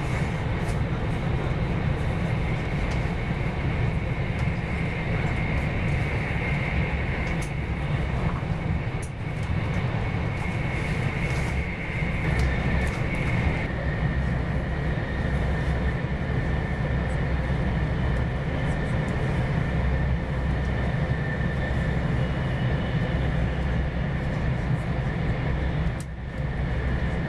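Cabin noise of a Joetsu Shinkansen Max Toki bullet train running: a steady low rumble with a thin high whine that steps down a little in pitch about halfway through, and two short dips in loudness.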